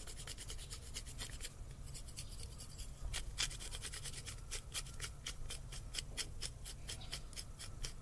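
Hand-twisted spice mill grinding dried rosemary: a run of quick grating clicks, thinning out briefly about a second and a half in, then going on.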